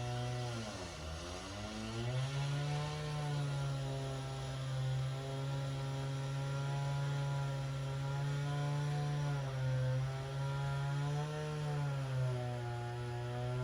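Concrete cut-off saw running at high speed while cutting through an old concrete foundation. Its pitch dips sharply about a second in and then wavers a little as the blade bites into the concrete.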